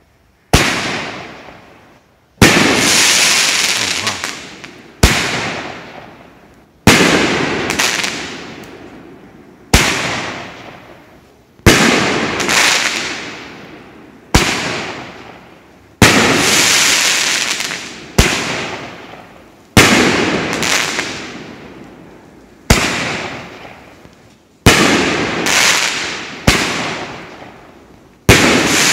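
Boom Wow 'Malice' 10-shot 500-gram fireworks cake firing its crackle shells. A sharp bang comes roughly every two seconds, each followed by a crackling hiss that dies away.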